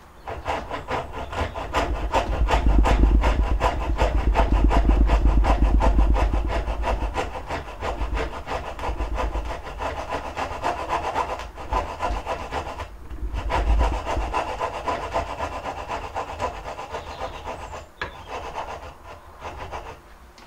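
Coping saw cutting through a wooden board in quick, even strokes, removing the waste from between dovetails. The sawing is loudest in the first third and stops briefly twice around the middle and once near the end.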